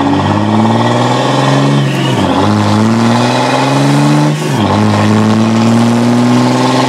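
Cummins 5.9 L common-rail turbo-diesel inline-six in a 2006 Dodge Ram, exhausting through a single uni stack, pulling hard under acceleration and heard from inside the cab. The engine note climbs, drops at a gear shift about two seconds in, climbs again, drops at a second shift about four and a half seconds in, then climbs once more.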